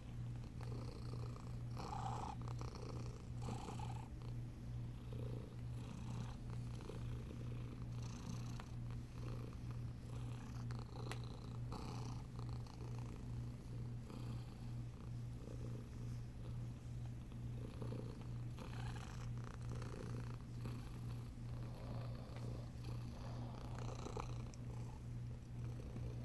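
Domestic cat purring steadily close up while being petted: a low continuous rumble with a regular pulse.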